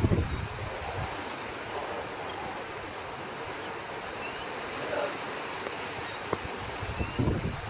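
Wind blowing steadily through neem leaves and buffeting the microphone, with low gusts at the start and near the end. A few faint, short high chirps sound over it.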